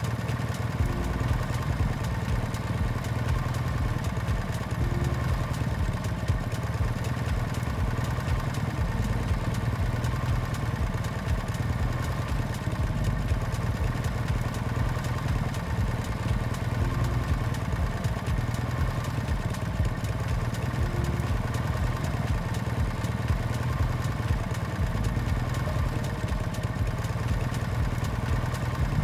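Motorbike engine running steadily, its pitch holding even with no clear revving up or down.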